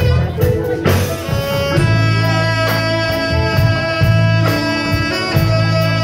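Live band playing: drum kit hits and steady bass guitar notes under long held lead notes from the guitar, keyboards and saxophone.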